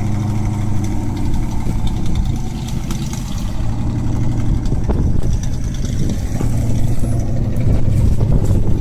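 A wood chipper's engine running steadily, with a few sharp knocks about five and seven seconds in.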